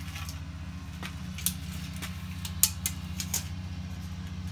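Steady low drone of a lawn mower engine running, with a few sharp clicks and taps from a tape measure being worked along a wooden door frame.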